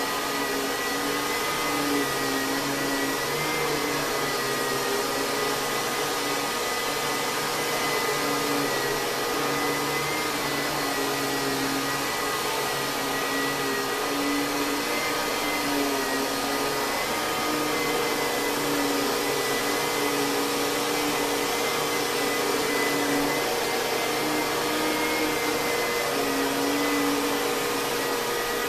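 Kenmore Progressive canister vacuum cleaner with a Lamb electric motor running steadily, a high motor whine over the rush of air.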